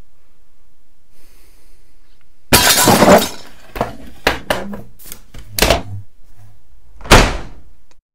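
Glass smashing: a loud crash of breaking glass about two and a half seconds in, then several sharp knocks and smaller smashes, and a second loud crash near the end, over a low hum.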